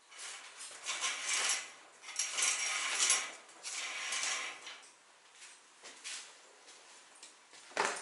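Shower curtain rings being dragged along the curtain rod in three pulls, each about a second long, followed by one sharp knock near the end.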